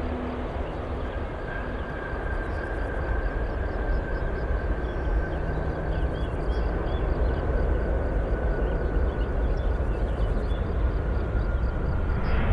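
Twin-engine widebody jet airliner rolling out after touchdown: a steady low jet rumble with a thin high engine whine over it, slowly growing louder.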